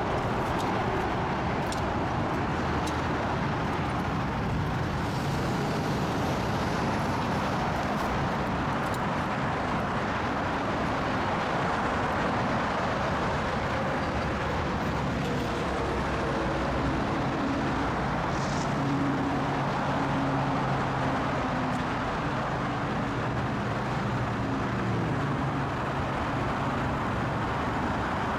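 Steady road traffic noise, with a low engine drone coming through in the second half.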